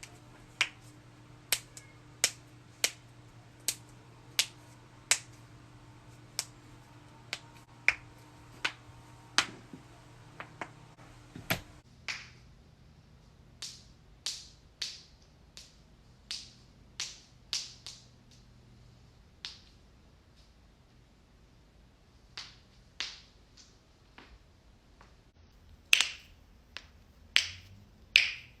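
Joints cracking: a long series of sharp pops, roughly one or two a second. About twelve seconds in the background hum changes and a second run of slightly duller pops follows, the loudest of them near the end.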